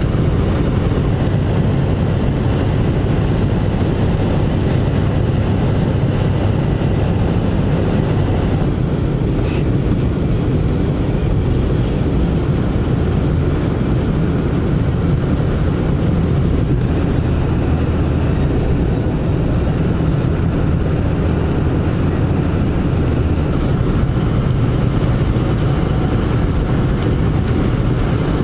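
Steady road and engine noise inside a moving vehicle's cabin, with the tyres running on a snow-covered road: an unbroken low rumble with no change in pace.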